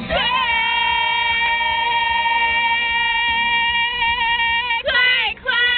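Singing with music: one long held sung note lasting nearly five seconds, then two short sung notes near the end.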